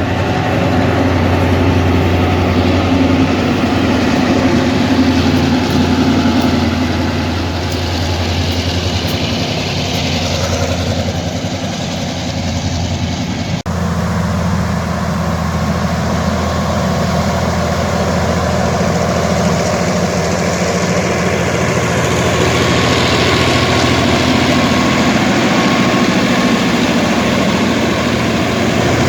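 Diesel locomotive engines running steadily with a heavy, low drone. The sound breaks off sharply about halfway through and carries on with a slightly different tone.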